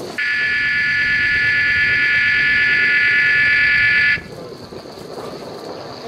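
A loud, steady, shrill alarm-like tone that starts abruptly, holds for about four seconds and cuts off suddenly.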